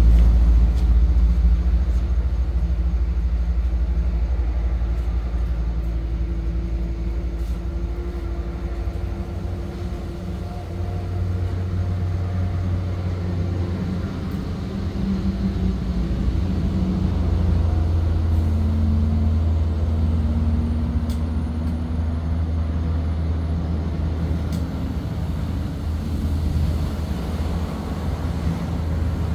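Road traffic on a highway: a steady low rumble of car and truck engines that swells and eases as vehicles pass, with a few faint clicks.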